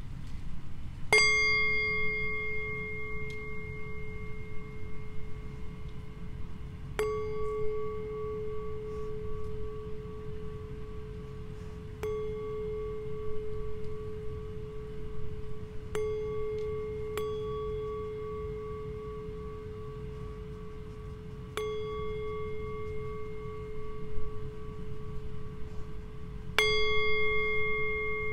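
Small hand-held brass singing bowl struck with a mallet seven times, a few seconds apart; each strike rings on in a long, steady hum with higher overtones, one of them wavering, and runs into the next strike.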